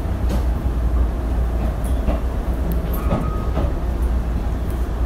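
Moving passenger train heard from inside a coach: a steady low rumble with scattered short clicks and knocks from the running gear on the rails, and a brief faint high tone about three seconds in.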